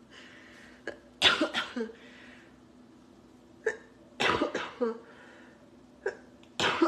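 A woman coughing hard, first into her fist and then into her elbow, in three bouts: about a second in, around four seconds in, and again near the end.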